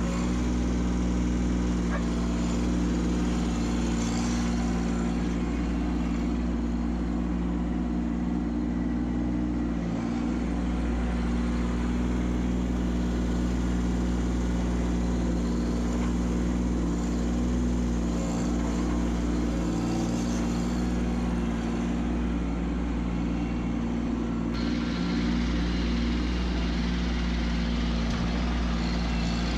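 Kubota B2601 compact tractor's diesel engine running steadily at a constant speed.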